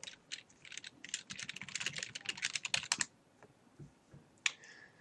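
Typing on a computer keyboard: a quick run of keystrokes for about three seconds, then a few single clicks.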